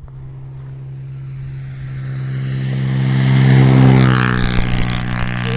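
Rally car engine approaching at a steady note and growing louder, loudest about four seconds in as it comes close.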